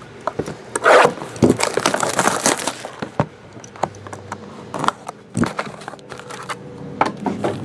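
Hands unwrapping and opening a sealed trading card box: crinkling and tearing of the plastic wrap, loudest about a second in, then scattered clicks and taps as the cardboard lid is cut and lifted open.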